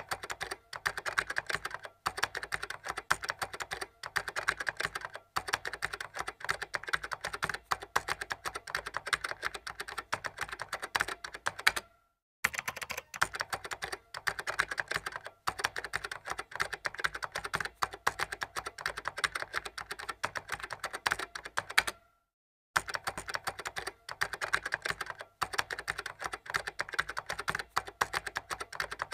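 Rapid keyboard typing clicks, a typing sound effect that runs with text being typed onto the screen letter by letter. The clicking pauses briefly every few seconds and stops cleanly twice for about half a second.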